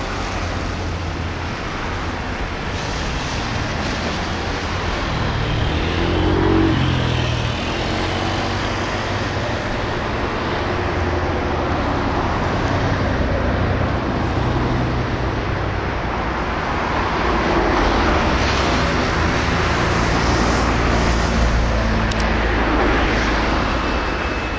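Road traffic going by: a steady rumble of passing vehicles that swells and fades, with one engine note rising and falling about six seconds in.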